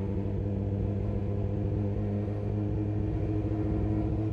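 Sportbike engine idling steadily, its pitch unchanging.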